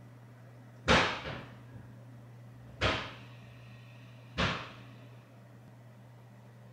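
Three sharp bangs, like blows on a wall or window frame, each ringing briefly before dying away. They come about a second in, just before three seconds, and about four and a half seconds in.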